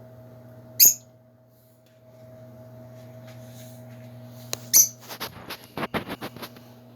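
Lovebirds calling: one loud, shrill chirp about a second in, two more sharp calls a little past the middle, then a rapid run of short scratchy sounds. A steady low hum runs underneath.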